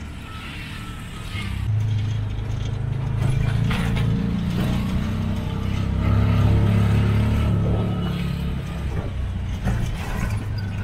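Auto-rickshaw engine running while driving, heard from inside the open cabin. It pulls harder about a second and a half in, is loudest around the middle, and eases off near the end, with a few short knocks from the bumpy street.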